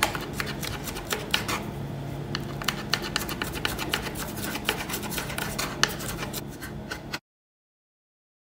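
Kitchen knife tapping on a plastic cutting board while fine-chopping green chillies and coriander: quick, irregular taps. The sound cuts off to dead silence about seven seconds in.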